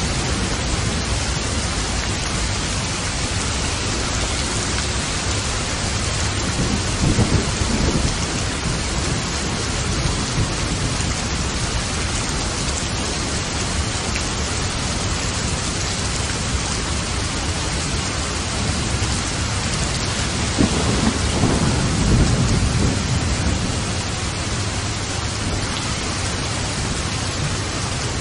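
Steady, heavy rainfall with thunder rumbling twice, low and drawn out: once about a quarter of the way in and again, longer, about three-quarters of the way in.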